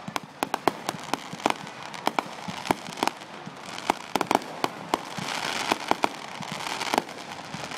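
Fireworks display: a rapid, irregular string of sharp pops and bangs, with a crackling hiss building in the last few seconds.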